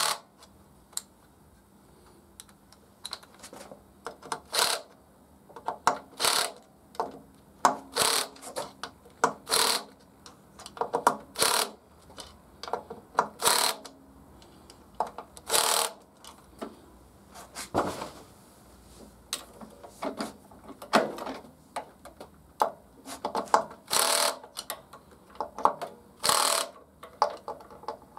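Irregular sharp metallic clicks and clinks of hand tools and screws against the polished aluminium primary chaincase cover of a BSA B31 motorcycle as it is fitted, coming in uneven bunches with short pauses.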